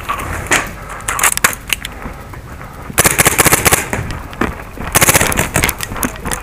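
First Strike T15 paintball marker firing on full auto: two rapid bursts, about three and five seconds in, after a few scattered single shots.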